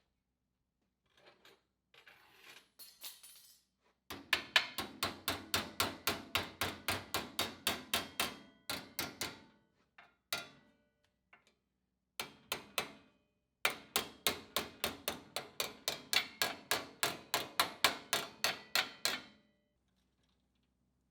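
Hammer striking sheet steel over a dolly in two runs of rapid, even blows, about four a second, each blow ringing briefly, with a few odd knocks in between: flanging a sheet-metal panel by hand.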